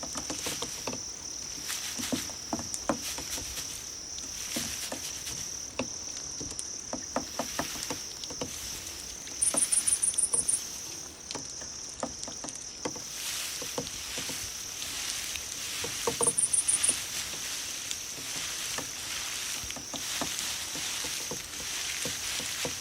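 Grass insects such as crickets calling in a steady high continuous trill, with a louder insect giving two short bursts of rapid chirps, one about ten seconds in and one about sixteen seconds in. Scattered light clicks run through it.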